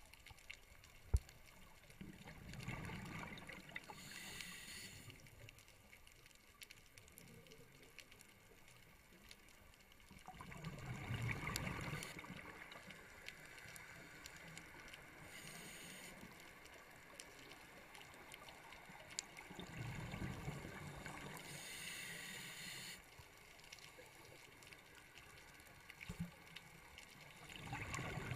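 A scuba diver breathing through a regulator underwater, faint: a hiss on the inhale and a low gurgling rumble of exhaled bubbles, repeating every several seconds.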